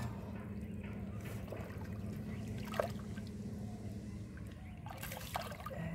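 Shallow muddy water sloshing and trickling as hands work through it, with a sharp splash about three seconds in and a couple more near the end. A steady low hum runs underneath.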